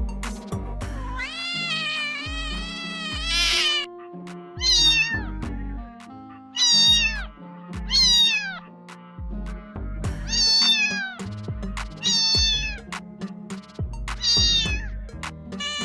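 Kitten meowing repeatedly, about eight high meows that each fall in pitch at the end, the first one long and drawn out, over background music with a steady beat.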